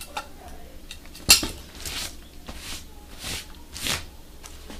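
Whole leather hides being handled and slid over a pile of skins: a sharp knock about a second in, then four or five rustling swishes of leather.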